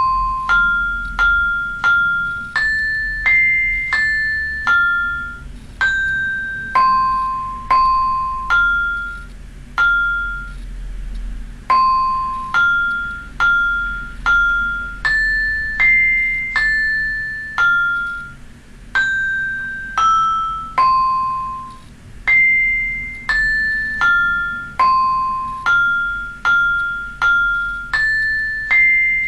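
Vibrafun tablet app's synthesized vibraphone/xylophone sound playing a simple melody of single notes, one to two a second, each struck sharply and ringing down, with a brief pause about ten seconds in.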